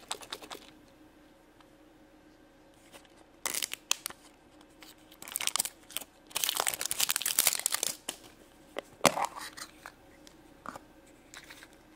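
Plastic wrapping and packets of a surprise egg crinkling and tearing as it is handled and opened, in bursts, with one sharp click about nine seconds in.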